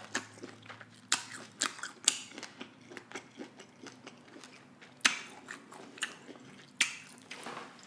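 A person chewing food close to the microphone: irregular wet mouth clicks and crunches, with two louder ones about five and seven seconds in.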